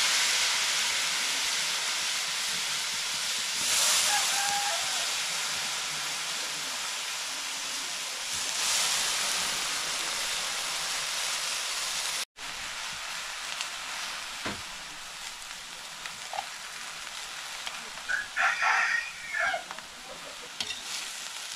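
Steady sizzling hiss, as of food frying in a pan, broken by a sudden cut about twelve seconds in. After the cut a fainter sizzle goes on, and a rooster crows a little before the end.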